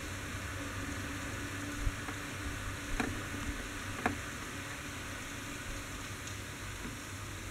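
Steady hiss of rain falling on the street, with three sharp taps of drops about two, three and four seconds in.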